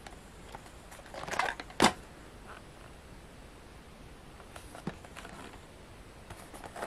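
Cardboard toy-train box handled in the hands. A brief scraping rustle comes about a second in, then a sharp tap, and a lighter knock about five seconds in.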